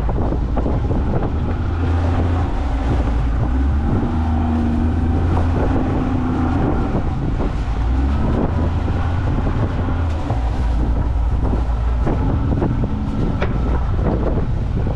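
Wind buffeting the microphone aboard an open fishing boat at sea, a steady low rumble with the sea washing along the hull.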